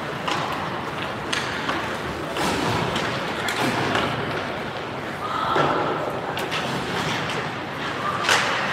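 Ice hockey rink sound: a steady murmur of the arena, broken by scattered sharp knocks and thuds from hockey sticks and pucks on the ice and boards, the loudest near the end.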